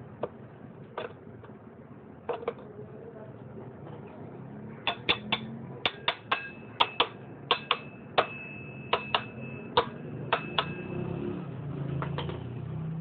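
Sharp metallic clinks and taps of steel motorcycle parts being handled and fitted: a few scattered clicks, then a quick run of about a dozen clinks, some with a brief metallic ring, as a new rear sprocket and its washers go onto the hub.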